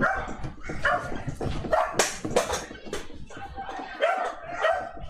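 A dog barking over and over, about two or three barks a second, with one sharper, louder bark about two seconds in.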